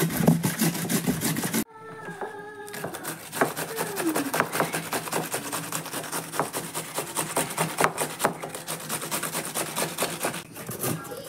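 Cucumber rasped against a stainless steel box grater in quick, repeated scraping strokes. The strokes break off suddenly about two seconds in, then go on more quietly.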